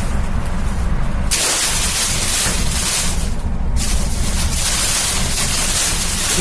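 Amazon Basics box fan running with a low rumble, and a plastic grocery bag flapping and rustling hard in its airflow against the blades. The rustling cuts in sharply about a second in, drops out briefly past the middle, then carries on.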